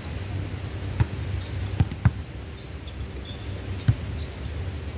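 A volleyball being struck by players' hands during a rally: four sharp slaps, about a second in, two close together near two seconds, and one near four seconds, over a steady low rumble.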